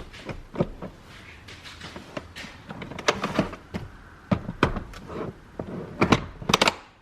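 Clicks, knocks and rattles of a baby car seat being pushed and latched into place in a car, as it is checked whether it has locked in; the loudest knocks come about three seconds in and near the end.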